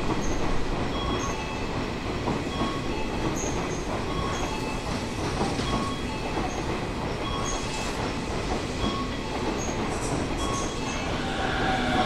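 Tobu 50090-series electric train rolling slowly into the station alongside the platform, a steady rumble of wheels on rails as it pulls in to stop.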